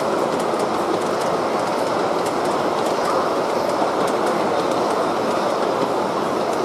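G-scale model passenger cars rolling past on the track: a steady rumble of metal wheels on rail with faint clicks.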